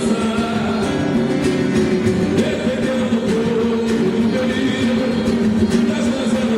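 Live samba-pagode band playing, with singing.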